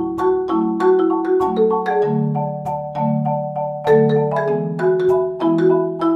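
Background music: a quick, steady stream of struck, ringing melody notes over held low bass notes.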